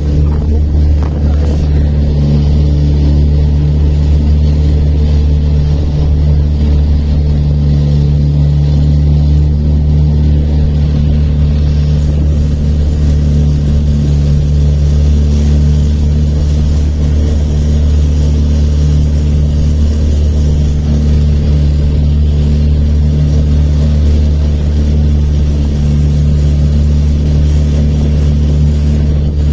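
Small motorboat's engine running steadily under way, a loud, even low drone that holds its pitch throughout.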